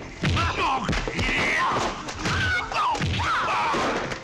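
Kung-fu film fight sound effects: a run of dubbed punch and body-blow thuds, about one a second, mixed with the fighters' shouts and yells.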